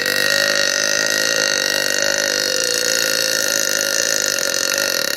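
A woman belching: one long, drawn-out belch held at a steady pitch.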